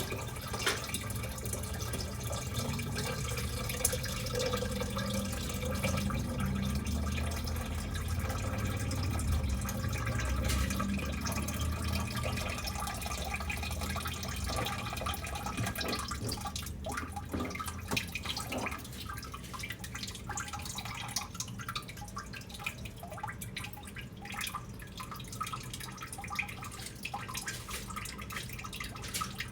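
Water in a baby's bath: small splashes and scattered drips as the water is moved about.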